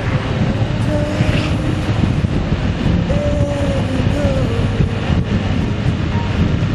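A vehicle on the move: a steady, loud low rumble with wind buffeting the microphone.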